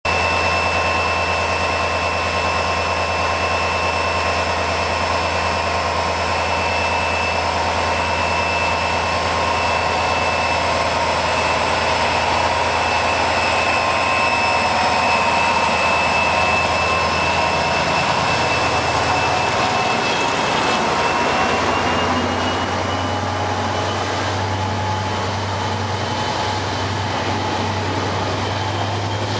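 HŽ series 2044 diesel-electric locomotive running as it hauls the night train past: a steady low diesel drone with a high whine over it. About two-thirds of the way through, the engine note and the whine rise in pitch as the locomotive notches up.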